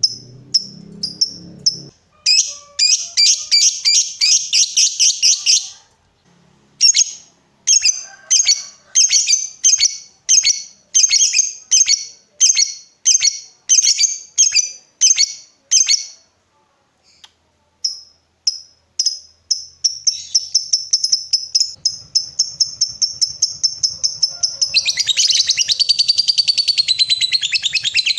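Lovebird 'ngekek': rapid, high-pitched chattering chirps in runs of a few seconds with short breaks, then one long unbroken trill that grows denser near the end.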